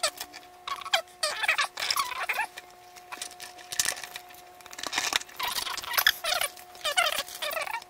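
Hard plastic toy playset parts being handled and snapped together: irregular clicks, knocks and squeaky scraping of plastic on plastic.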